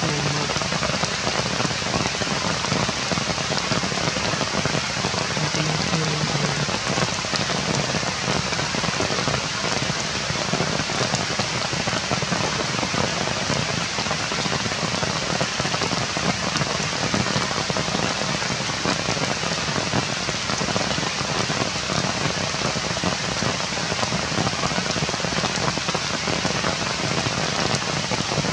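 Steady rain falling on forest leaves, an even hiss of countless drops at a constant level.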